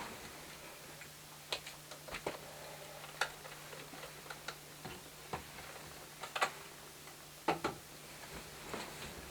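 A series of irregularly spaced light clicks and knocks over a faint steady hum.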